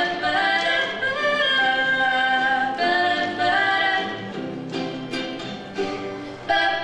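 Two female voices singing a pop song, accompanied by acoustic guitar and ukulele. The singing quietens about four seconds in, leaving mostly the plucked instruments, then comes back strongly near the end.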